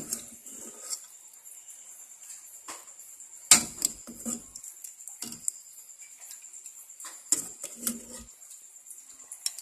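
Metal ladle knocking and scraping in an aluminium pot as curry is ladled into a bowl: a handful of sharp clinks a second or more apart, the loudest about three and a half seconds in, over a steady thin high-pitched hiss.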